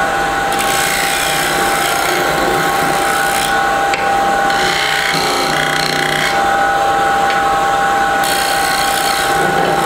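Wood lathe running with a steady hum while a bowl gouge makes facing cuts across the back of a spinning bocote blank to true it flat: a scraping hiss in three passes, the first the longest.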